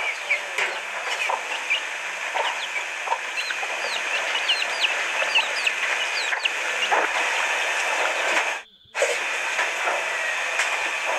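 Chicks peeping: many short, high cheeps over a steady background hiss. Near the end the sound drops out for a moment.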